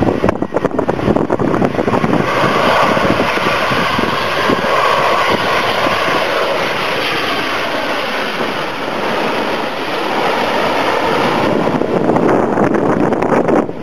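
Twin-engine jet airliner passing low overhead on its landing approach: a steady engine roar that falls in pitch as it goes by and fades, with gusty wind buffeting the microphone before and after.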